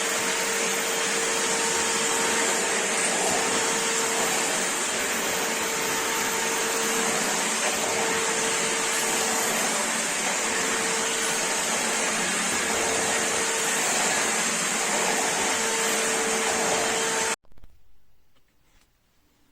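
Bosch UniversalVac 18 cordless 18-volt vacuum cleaner running steadily, a rushing airflow with a steady motor whine, stopping abruptly near the end.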